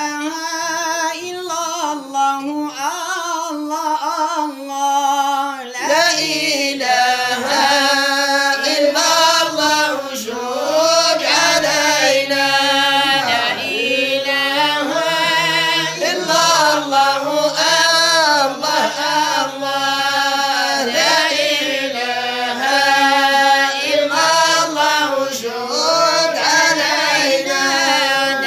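Arabic madih nabawi (devotional praise of the Prophet) sung without instruments, in long, gliding, ornamented melodic lines.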